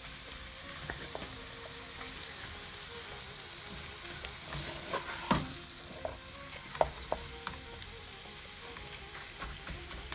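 Chicken pieces frying dry in oil and spice masala, sizzling steadily, while a wooden spatula stirs and turns them in the pan. A few sharp knocks of the spatula against the pan come about five seconds in and again about seven seconds in.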